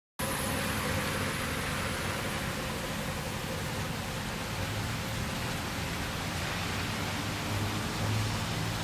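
Steady rain falling, an even hiss with no breaks, over a faint low hum.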